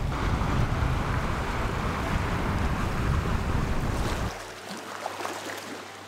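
Sea surf washing against shore rocks, with heavy wind rumble on the microphone. About four seconds in the wind rumble cuts off, leaving quieter waves.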